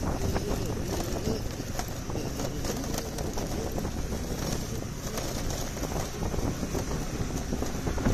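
Wind buffeting the microphone of a phone held on a moving two-wheeler, over the low steady rumble of its engine and tyres on the road.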